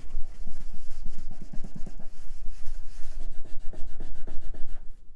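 Cloth rubbed quickly back and forth over the plastic front panel of an HP Brio desktop computer case, several wiping strokes a second.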